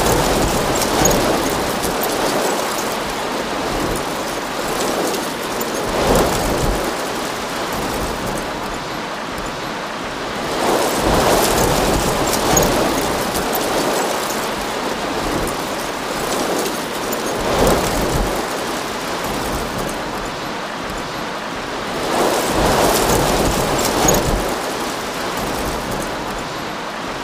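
Steady heavy rain with low rumbles of thunder swelling up every five or six seconds.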